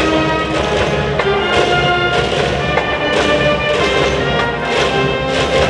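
High school cheering brass band playing a cheer song, massed brass over a steady drum beat.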